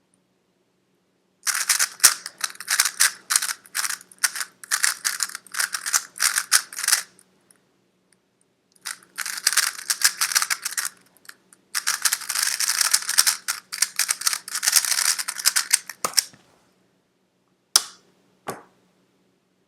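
Rubik's cube being turned fast, a quick plastic clatter of layer turns in three runs with short pauses between them. Near the end come two single sharp clicks.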